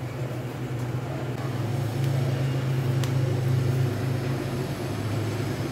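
A steady low mechanical hum, like a motor or fan running, with a few faint clicks on top.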